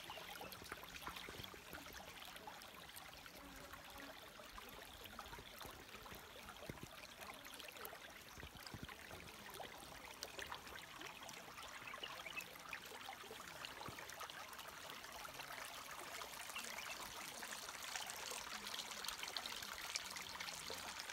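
Shallow stream trickling and babbling over stones, a faint steady sound that grows a little louder near the end.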